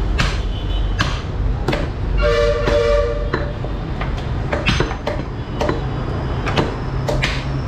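Meat cleavers chopping beef on wooden log chopping blocks, sharp chops roughly once a second. A horn sounds steadily for about a second midway.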